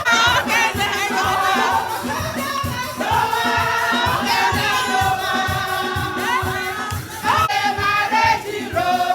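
Gospel praise-and-worship music: several voices singing together over band accompaniment with a steady drum beat.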